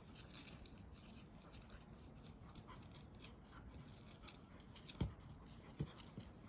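Faint dog sounds with small scattered clicks, and two sharp knocks about five and six seconds in.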